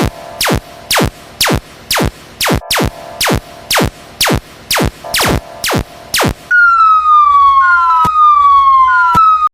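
Electronic cartoon sound effects: a quick row of short falling chirps, about two and a half a second. About six and a half seconds in they give way to a pitched tone that slides downward four times over a low hum.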